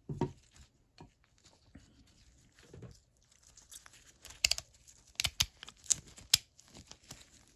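Small metal parts of a flexhead ratchet clicking and tapping as the gear head is worked back into the body with the pawls pressed down. A few scattered clicks come first, then a run of sharp, loud clicks from about four and a half to six and a half seconds in.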